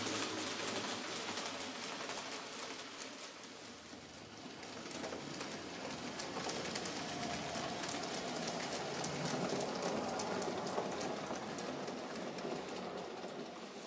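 N-scale model freight train running on the layout's track: a dense crackling rattle of small wheels on rail, quieter around four seconds in, then louder again with a faint motor whine.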